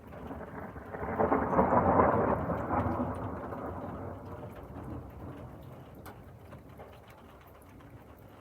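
A roll of thunder rumbles up about a second in, is loudest around two seconds, and dies away slowly over the next several seconds, with rain falling and drops ticking throughout.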